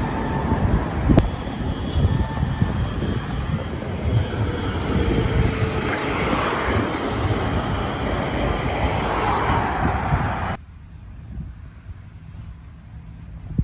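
Street traffic noise, a steady rumble and hiss that drops suddenly to a quieter background about ten and a half seconds in.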